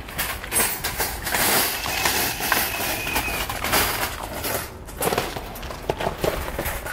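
A cloth rustling and brushing as it is pulled over a wire cage trap, with a few light knocks from the trap being handled.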